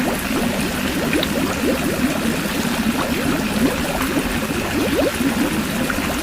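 Water running and gurgling steadily, with many small bubbling blips.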